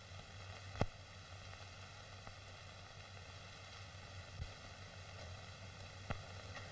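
Steady hiss and low hum of an old optical film soundtrack, with a few sharp crackling pops, the loudest about a second in.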